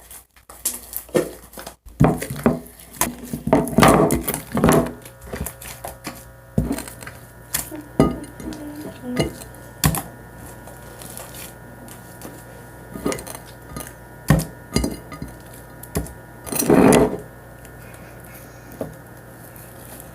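Scattered clatter and knocks of containers and utensils being handled as slime is moved from one container to another, with a louder clunk near the end. A faint steady hum sets in about six seconds in.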